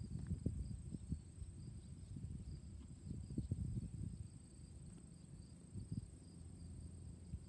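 Steady high-pitched insect trilling outdoors, with an uneven low rumble and a few soft bumps on the microphone.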